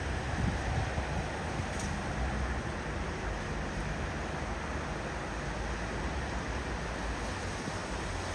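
Steady outdoor background of wind on the microphone and distant city traffic, an even rushing noise heaviest in the low end.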